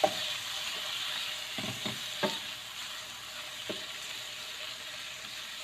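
Peeled shrimp sizzling in hot oil in a pan with garlic, onion and ginger, a steady hiss, with a few knocks of a utensil stirring them in the first four seconds.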